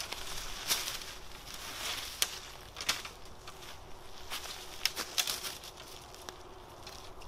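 Footsteps crunching through dry fallen leaves on a forest floor, with short sharp cracks of twigs and dead branches breaking underfoot at irregular moments.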